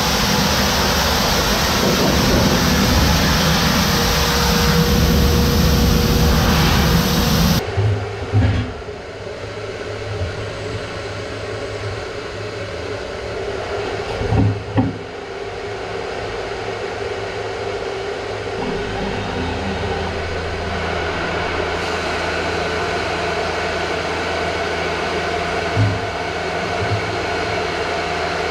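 Factory machinery noise: a loud, steady roar that cuts abruptly to a quieter, lower hum about seven and a half seconds in, with a few short clunks.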